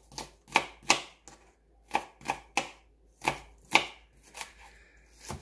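Kitchen knife chopping onion on a plastic cutting board: about ten sharp knocks in small groups of two or three, with short pauses between groups.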